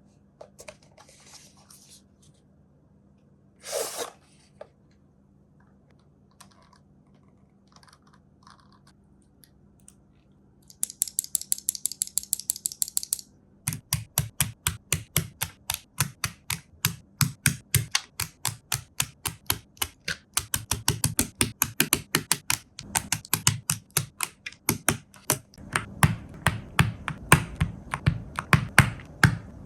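Typing on an ND75 mechanical keyboard fitted with stock, unlubricated Akko Crystal Silver switches. A short noise comes about four seconds in, then a quick run of bright, light clicks from about eleven seconds. From about fourteen seconds there is steady, fuller typing with a deeper low end.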